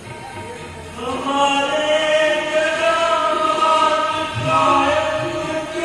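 Devotional chanting sung in long held notes over background music, the singing coming in about a second in.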